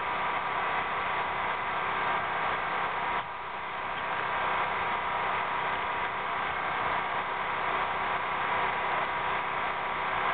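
A steady motor hum over a hiss, dipping briefly about three seconds in and building back.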